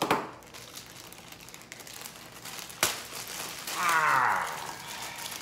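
Clear plastic packaging bag crinkling as it is handled and pulled open, with a sharp rustle at the start and another near three seconds. About four seconds in, a short sliding tone falls in pitch and is the loudest sound.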